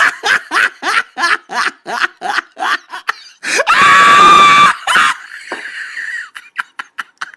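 A person laughing in a rapid run of short bursts, about four a second, breaking into a loud, held scream about three and a half seconds in. A few faint clicks follow.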